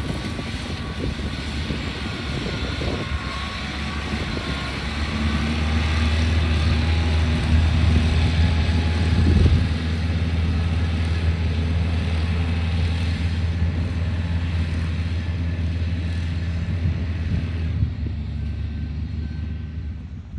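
Self-propelled tracked rice-straw baling machine running steadily as it rolls up straw into round bales: a steady low engine hum under broad mechanical noise, easing a little near the end.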